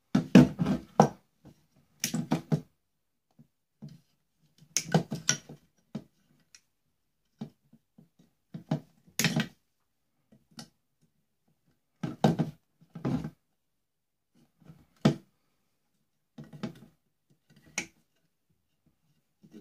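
Pliers clicking and knocking against the metal soleplate and fittings of a clothes iron being broken down for scrap: short clusters of sharp clicks and clatters every few seconds, with silent gaps between.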